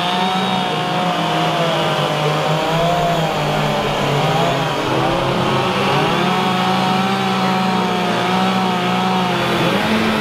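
Several gasoline chainsaws running at once as carvers cut into wood sculptures, each saw's engine pitch rising and falling as the cuts are worked.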